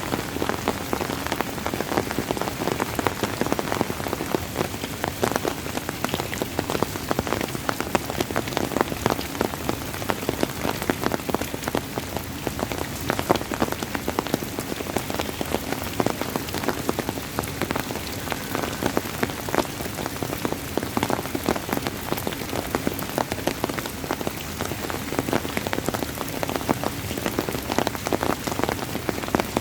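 Steady rain falling, with dense pattering of individual drops striking a surface.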